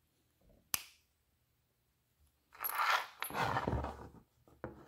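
Handling noise on a wooden workbench: a sharp click under a second in, then a 3.5-inch hard drive being picked up and turned over, rubbing and knocking against the bench for about a second and a half, with a couple of short knocks near the end.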